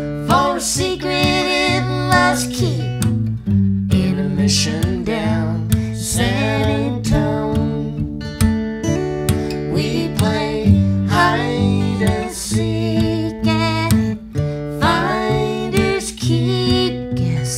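Background music: a country-style song with strummed acoustic guitar and a steady bass line, with singing here and there.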